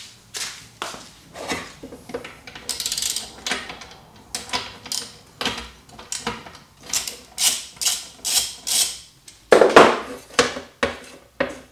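Hand tool working a bolt off the battery's terminal: a string of sharp metal clicks and knocks, with a quick run of fine clicks about three seconds in and a louder clatter near the end.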